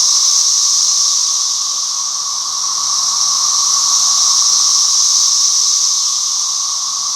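A chorus of many cicadas calling at once: a loud, steady, unbroken buzzing drone, a high hissing buzz over a lower steady hum. It makes a big racket.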